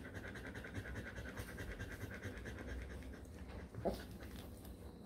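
A poodle panting steadily in quick short breaths, with one short sharp sound about four seconds in.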